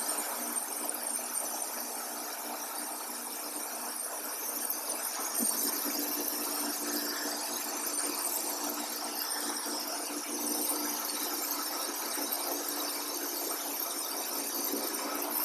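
Wood-Mizer LT40 Wide band sawmill cutting through an oak log: the engine runs under load and the band blade gives a steady, high-pitched whine in the cut.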